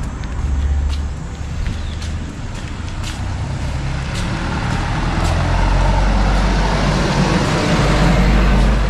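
A small bus drives past on the road alongside, its engine and tyre rumble growing louder as it comes closer over the last few seconds.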